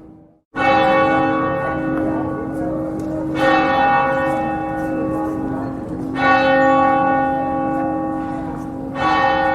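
Church bell tolling slowly: four strikes about three seconds apart, each ringing on with its overtones into the next, after a brief drop-out just before the first strike.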